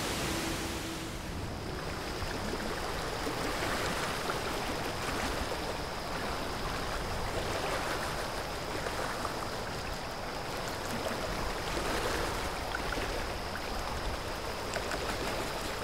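Ambience of open water lapping and washing gently, swelling and fading about every couple of seconds.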